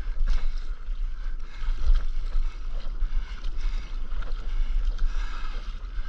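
Sea water sloshing and slapping against a stand-up paddleboard in irregular small splashes, with wind buffeting the microphone as a steady low rumble.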